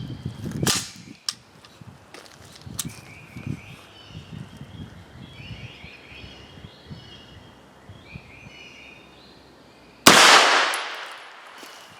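A single 9mm shot from a PSA AR-9 carbine about ten seconds in, with 115-grain SIG hollow-point ammunition: one sharp report with a long decaying echo. The load is running supersonic, about 1500 fps. Before it there is a sharp click shortly after the start and faint bird chirps.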